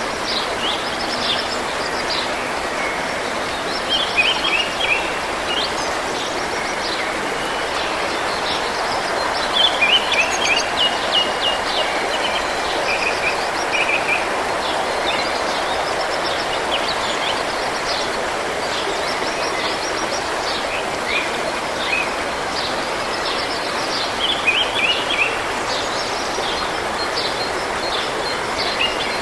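A stream running steadily, with songbirds singing over it in short runs of quick high notes that come and go several times.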